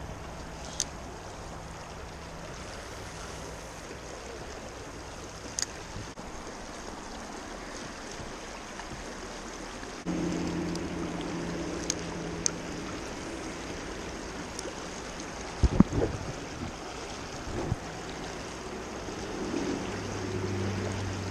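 Creek water running steadily over riffles below a bridge. A few sharp clicks, a low hum that comes in suddenly about halfway, and a quick cluster of loud knocks about three-quarters through.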